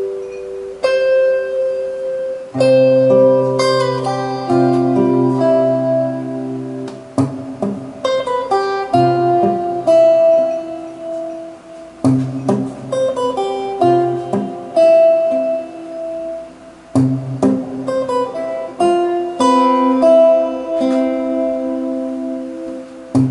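Solo steel-string acoustic guitar played fingerstyle with a capo, a melody picked over ringing bass notes and chords in phrases with short breaks between them.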